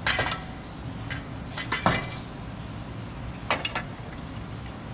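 Metal clinks and clanks of tools and steel parts as a replacement engine mount is worked down into place, in three short groups: at the start, about two seconds in, and about three and a half seconds in.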